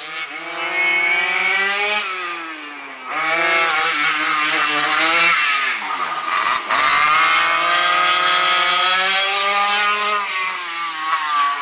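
Engines of a 1977 Hartman twin-engine racing kart, twin K-78 two-stroke engines, running at speed around a track. The pitch climbs on the straights and drops twice as the kart slows for corners, and it is loudest as it passes close by about halfway through.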